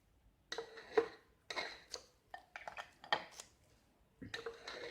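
A spoon scraping and clinking against a glass jar while thick fig-and-garlic paste is spooned in: several short scrapes and knocks in irregular bursts.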